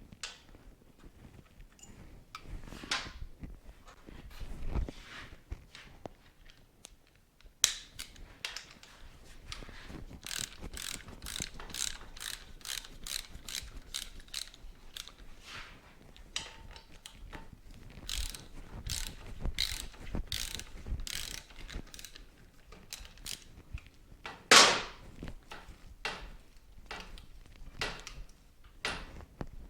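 Socket ratchet wrench clicking in runs of quick strokes as fasteners are worked loose, with scattered clinks of tools and parts and one louder knock late on.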